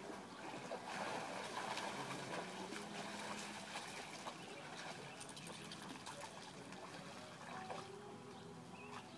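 Dogs splashing and paddling through water pooled on top of a pool cover, with water sloshing and trickling; the splashing is loudest from about one to four seconds in.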